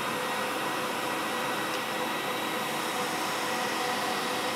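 Record Power CamVac dust extractor running at full speed just after being switched on: a steady rush of air with a high motor whine.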